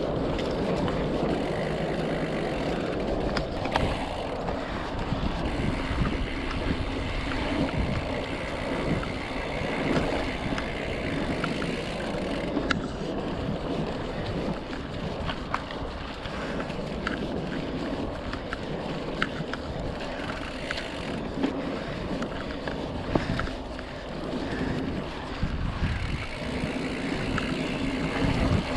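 Mountain bike with 26-inch plus tyres rolling over a dry dirt trail: a steady rush of tyre and wind noise on the microphone, with frequent small clicks and rattles from the bike jolting over bumps.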